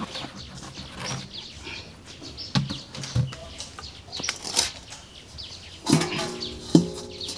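Small birds chirping repeatedly in short falling notes, with a few sharp taps in the middle and two louder, short pitched animal calls near the end.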